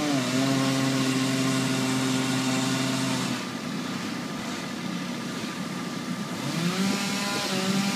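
An engine running steadily at speed, easing off about three seconds in, then revving back up and holding a higher pitch near the end.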